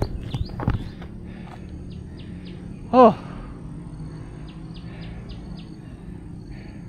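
Forest ambience with repeated short, high bird chirps over a steady background. There are a couple of soft thuds, like footsteps, in the first second, and a brief spoken 'oh' about three seconds in, the loudest sound.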